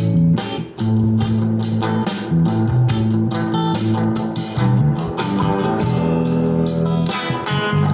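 Guitar-led music with bass and a drum beat, playing through a speaker driven by a homemade Class A amplifier built on IRF3205 MOSFETs.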